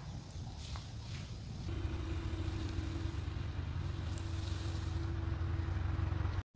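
2022 Ford Bronco Badlands' 2.7-litre twin-turbo V6 engine running with a low rumble and a steady hum, growing louder and steadier after a couple of seconds, then cutting off suddenly just before the end.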